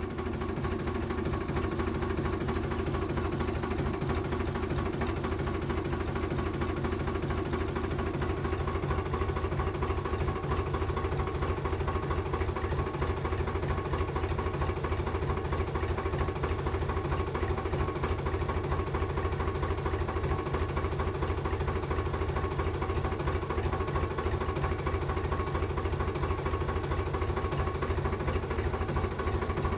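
Tractor engine running steadily with a fast, even low chugging while the model tractor pulls a cultivator through sand.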